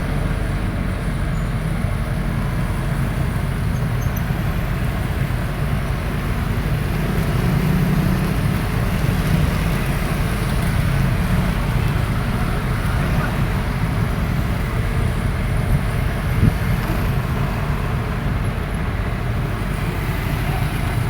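Excavator's diesel engine running steadily, swelling a little in the middle, with one brief knock about three-quarters of the way through.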